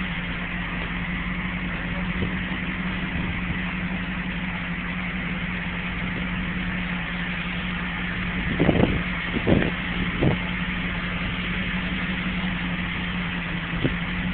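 Pontiac Firebird Trans Am engine idling steadily as the car creeps forward at walking pace, with three brief louder sounds about nine to ten seconds in.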